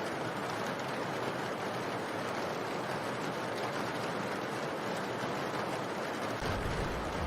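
Steady, even rain noise used as a masking ambience. Near the end a low rumble of thunder begins to build.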